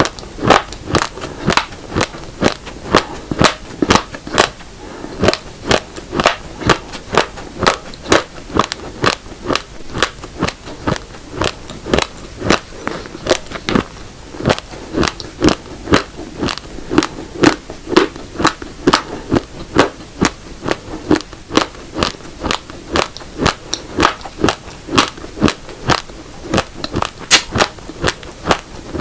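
Raw black and red rice grains being chewed close to the microphone: a steady run of sharp, hard crunches, about three or four a second.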